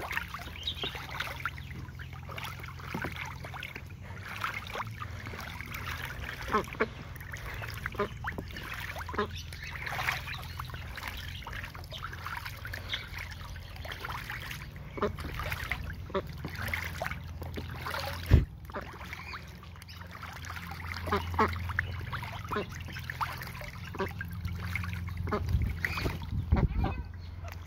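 White domestic ducks bathing in a plastic kiddie pool: water sloshing, with many short splashes as they dunk their heads and flap, and occasional quacks. One sharp thump about two-thirds of the way through.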